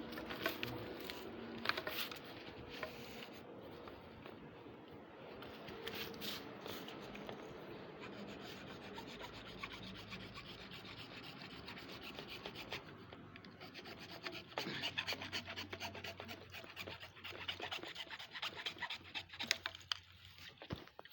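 Rasping, scraping strokes of hand-tool work on a hard surface, with a few sharp knocks in the first part. About two thirds of the way through the strokes become faster and louder.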